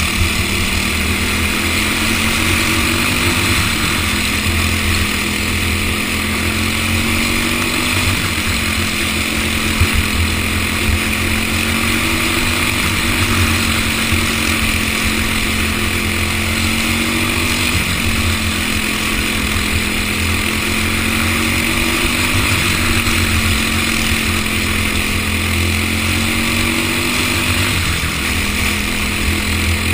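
Racing go-kart engine recorded from the kart's onboard camera at full race pace. Its pitch climbs steadily on each straight and drops sharply into each corner, again and again every few seconds.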